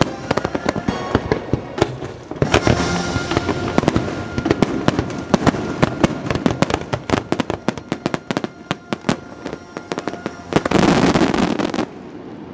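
Fireworks show: rapid bangs and crackling bursts over the show's music, ending in a dense, loud finale barrage about a second before the end that stops suddenly.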